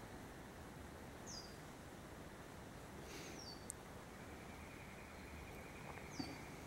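Faint background hiss with three short, high, falling bird chirps spread through the clip, and a faint steady high tone in the second half.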